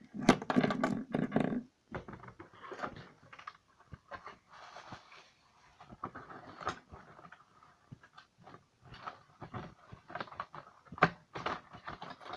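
Irregular clicks, knocks and short rustles of small objects being handled, after a louder, fuller sound in the first second or two.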